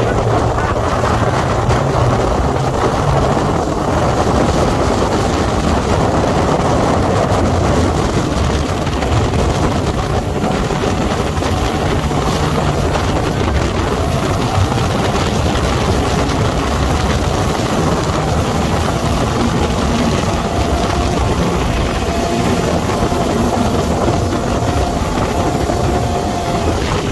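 Sandrail dune buggy's engine running steadily as it drives over sand dunes, heard from inside the open roll cage. A faint steady whine joins about halfway through.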